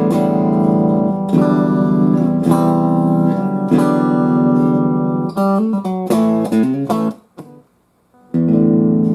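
Electric guitar chords and notes played through a Fender Super Champ XD 15-watt tube combo amp (two 6V6GT power tubes), ringing out in sustained stacks. The playing stops for about a second around seven seconds in, then resumes.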